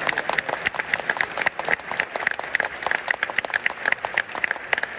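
Theatre audience applauding: many hands clapping in a dense, even patter that keeps up steadily.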